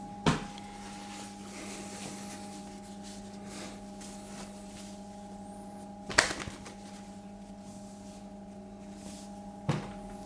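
Steady electrical hum, with three short knocks at about the start, the middle and near the end.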